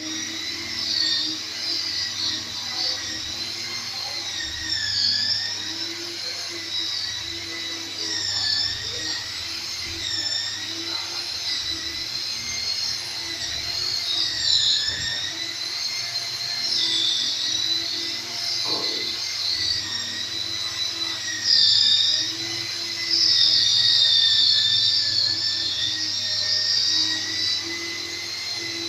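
Electric rotary polisher running continuously, polishing scratches out of glass. Its high whine sags in pitch every second or two and then recovers, as it is pressed and moved over the pane.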